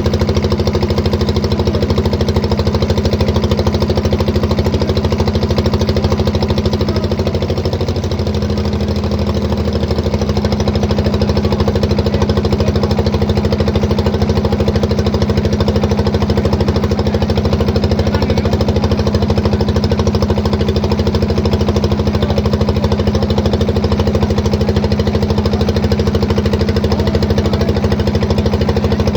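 Boat engine running steadily with a loud, even drone. It eases off briefly about eight seconds in, then picks back up.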